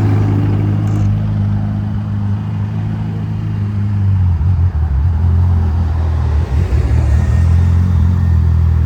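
Ferrari sports car engine running with a deep, steady rumble; about four and a half seconds in its note drops a little and grows louder.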